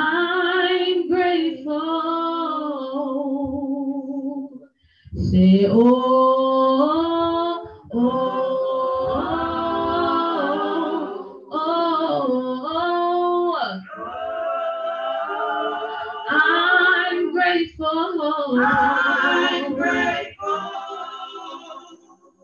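A woman singing solo without accompaniment, gospel praise singing in long held notes with vibrato, in phrases broken by short pauses for breath.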